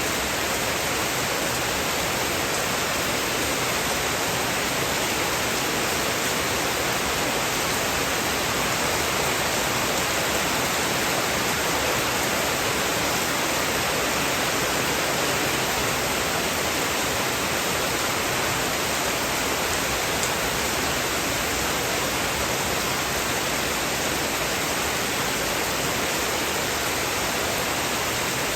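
Heavy rain falling steadily as an even, unbroken hiss, with no thunder.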